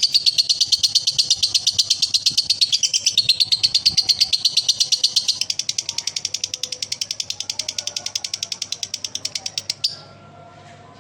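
A male lovebird's long 'ngekek' chatter: a rapid, even string of sharp high notes, about eight a second. It gets quieter about halfway through and stops about ten seconds in.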